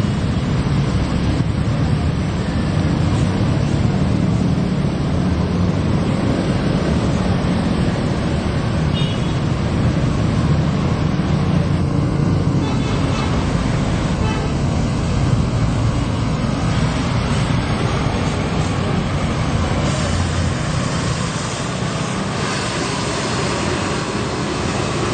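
Road traffic with large vehicles such as buses, their engines running with a steady low rumble close by. A few faint short high notes come through around the middle.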